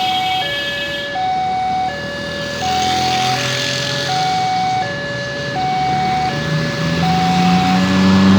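Railway level-crossing warning siren sounding an alternating two-tone signal, a higher note then a lower note, about one pair every 1.2 seconds. A low drone swells under it near the end.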